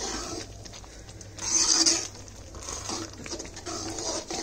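Metal ladle stirring thick, simmering ragda (white pea curry) in a metal pan, with one louder stroke about a second and a half in.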